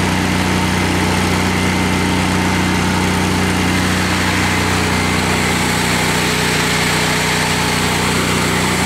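Miller Bobcat 250 welder-generator's 20 hp Kohler gasoline engine running steadily, with no change in speed.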